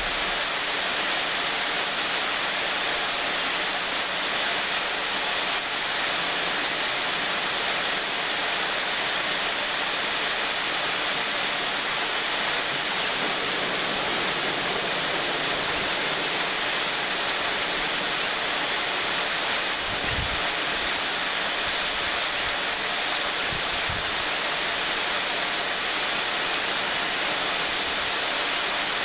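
Small waterfall on a mountain stream: water falling and rushing in a steady, unbroken roar. A couple of brief low thumps sound about two-thirds of the way through.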